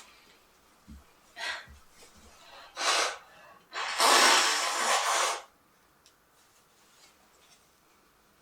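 A person's sneeze build-up: quick breaths, then one loud, drawn-out sneeze about four seconds in.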